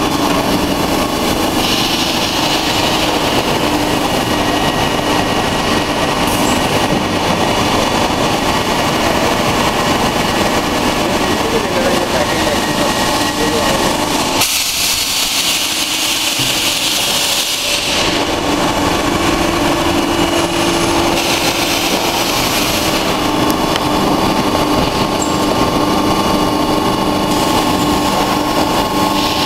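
Continuous factory machinery noise: a steady hum with a few held tones over a dense rumble. For about three seconds in the middle the low hum drops away and a bright hiss takes over, then the hum returns.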